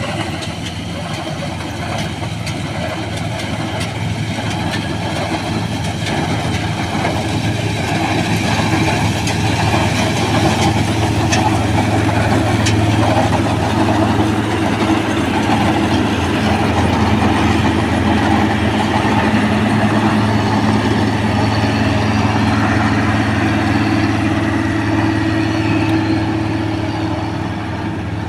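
New Holland combine harvester running steadily with a continuous low engine hum, growing louder over the first ten seconds or so.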